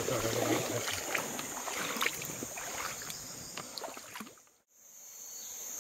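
Water splashing and sloshing from someone wading in a river, with many small irregular splashes, over a steady high drone of insects. The sound drops out briefly about four and a half seconds in, then the insect drone carries on alone.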